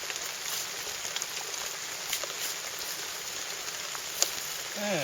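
Steady hissing noise with scattered faint ticks, and one sharp click about four seconds in.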